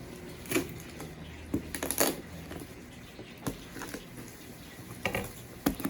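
Scattered light knocks and rustles of a parcel being handled, about half a dozen short clicks spread over several seconds.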